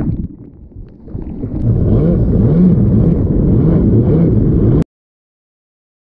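Rickter MX1 stand-up jet ski's engine revving, its pitch rising and falling, over rushing water and wind on the microphone. The sound is muffled and quieter for about a second near the start while the ski is in the surf, then builds up loud. It cuts off abruptly to dead silence about three quarters of the way in.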